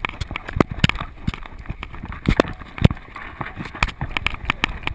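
Paws of a running miniature schnauzer slapping and splashing through shallow water on wet sand, heard from a camera strapped to the dog, in quick, irregular thumps.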